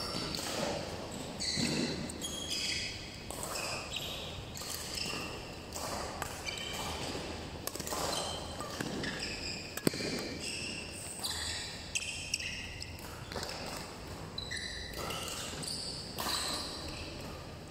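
Badminton rally: athletic shoes squeaking in short, high chirps on the court mat as the players move, with sharp strikes of racket on shuttlecock, one especially crisp about ten seconds in.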